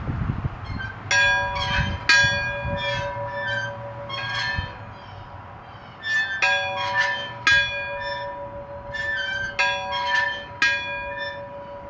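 Church bell being rung: struck strokes about a second apart in three spells, with its deep hum ringing on between them.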